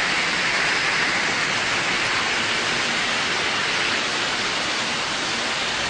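Heavy rain pouring down in a steady, dense hiss, a downpour hard enough to be taken for tornado weather.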